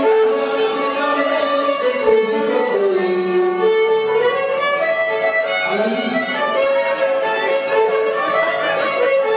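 Greek folk dance music playing: a continuous melody line moving up and down over steady accompaniment.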